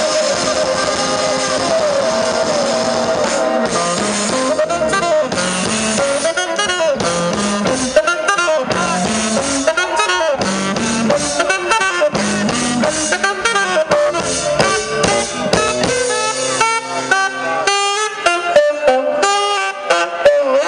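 Live funk band playing an instrumental passage: drum kit, electric guitars, bass and saxophone, with melodic lines sliding up and down over a steady groove.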